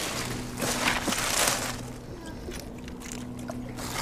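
Wet seaweed rustling and water splashing as seaweed is pulled aside in a rock pool, in a few short bursts in the first half. A faint steady low hum runs underneath.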